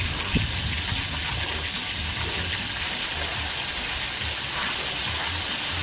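Steady sizzling and bubbling of rice noodles and water cooking in a wok over a wood fire as they are stirred with a wooden spatula, with one short knock about half a second in.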